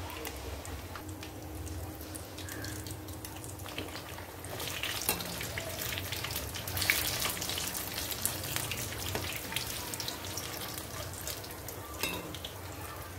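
Hot oil sizzling and crackling around chicken money bags, spring roll wrapper pouches deep-frying in a kadhai. The popping grows busier about five seconds in.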